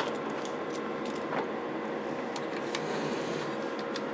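Steady background hiss with a faint steady hum from the powered test bench, broken by a few faint light clicks as the radio is handled.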